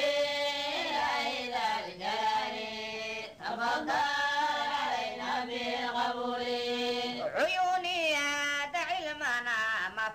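A voice singing an Arabic devotional chant in long, drawn-out held notes that waver and bend, with short breaks between phrases.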